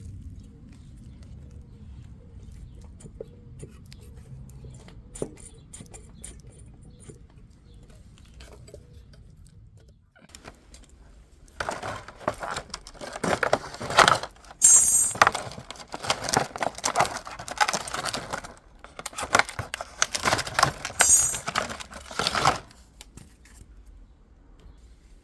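Metal tools and parts being handled, with a few small clicks over a low steady rumble at first, then two long bouts of loud clinking and rattling through the second half.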